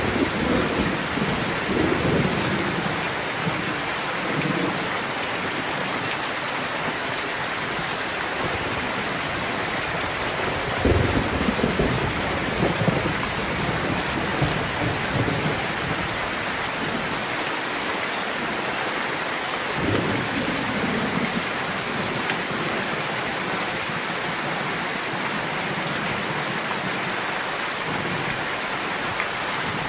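Steady rain with low rumbles of thunder rolling in near the start, again about eleven seconds in and once more about twenty seconds in.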